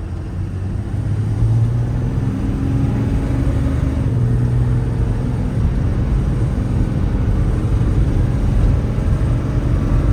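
Cummins 6.7-litre inline-six diesel of a Ram 5500 running under way, with a steady low rumble of engine and road noise heard from the cab; it gets louder about a second in as the truck pulls on.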